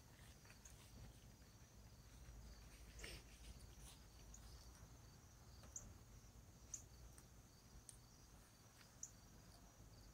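Near silence: faint outdoor evening ambience with a few small, scattered clicks and a soft rustle about three seconds in.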